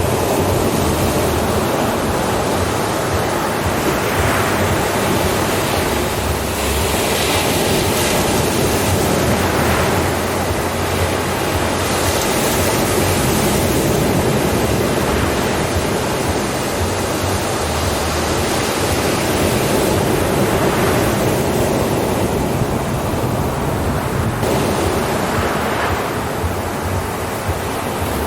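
Ocean surf: waves breaking and washing in continuously, with a surge every few seconds.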